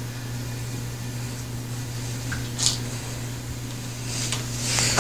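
Steady low background hum, with a few short soft rustling noises, one about two and a half seconds in and a cluster near the end.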